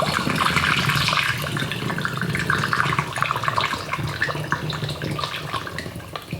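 Homemade thyme-and-honey sugar syrup being poured through a funnel into a glass bottle: a continuous trickle of liquid that thins out near the end.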